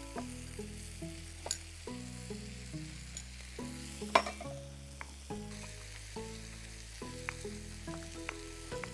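Chicken sizzling as it fries in ghee and spices in the pan, under soft background music of held notes that change every half second or so. A few light clicks of kitchen handling, the sharpest about four seconds in.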